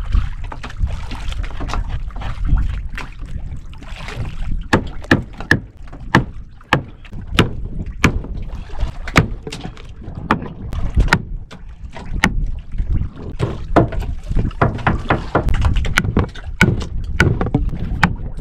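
Knife chopping through a trevally's head: sharp, irregularly spaced strikes, about one or two a second from roughly four seconds in, over a steady low rumble.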